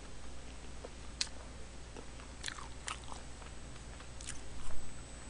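Close-miked chewing of a spoonful of budae-jjigae (Korean army stew): soft, scattered mouth clicks and smacks, a few of them closer together about four and a half seconds in.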